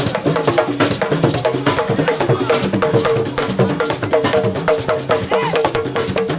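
Live band music driven by rapid hand-drum strokes, likely congas, over a repeating melodic line and bass.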